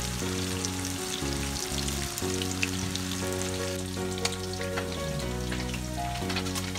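Marinated fish deep-frying in hot oil in a kadai: a steady crackling sizzle full of small pops. Background music with sustained low notes plays under it.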